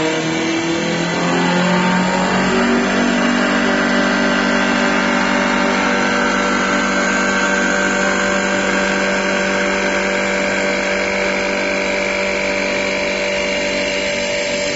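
Automatic CNC wood lathe turning a long wooden blank, its cutter peeling off shavings. The machine's motor whine rises in pitch over the first couple of seconds, then holds steady over the hiss of cutting.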